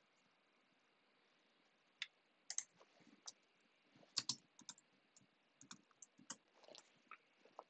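Faint computer keyboard keystrokes as code is typed: an irregular scatter of sharp key clicks starting about two seconds in.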